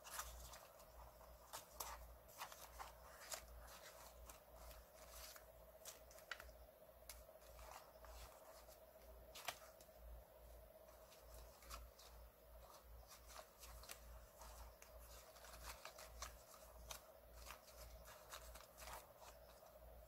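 Hands flipping through a stack of vintage paper cards and ephemera in a box: irregular crisp paper flicks and rustles. A faint steady hum runs underneath.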